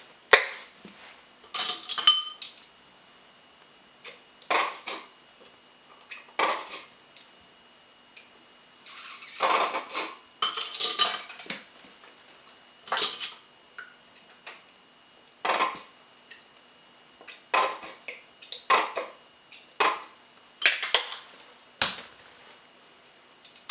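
Tomato ketchup being squeezed and shaken out of a plastic squeeze bottle into a glass bowl. A series of short noisy handling bursts comes every second or two, with clinks of the bottle and spoon against the glass.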